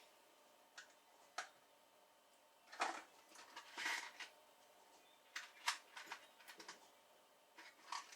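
Small objects being handled on a bench: a scattering of faint clicks, taps and short rustles, the loudest about three and four seconds in.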